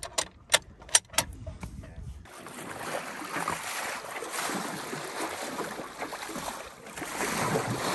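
A few sharp clicks, then from about two seconds in a steady rush of wind and water around a sailboat under way, with wind buffeting the microphone.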